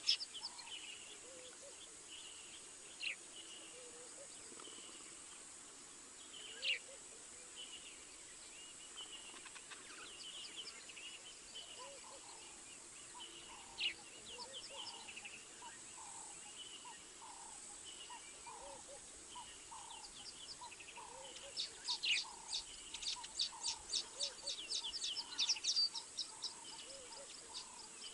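Several wild birds calling in the bush: scattered high whistles, a lower call repeated about once a second through the second half, and a rapid run of sharp high chirps near the end, the loudest part. A thin steady high tone sits underneath.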